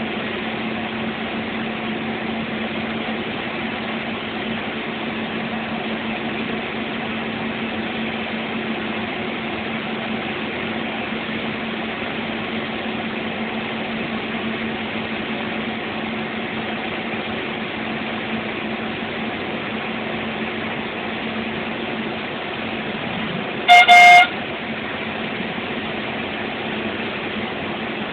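Bus engine and road noise droning steadily inside the cabin while driving on a highway. Near the end a loud horn honks twice in quick succession, the two honks lasting about half a second together.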